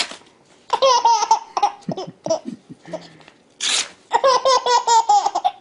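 A sheet of paper is torn, and a baby answers with a quick run of high, chopped giggles. A little past halfway the paper is torn again, and the baby laughs again, longer.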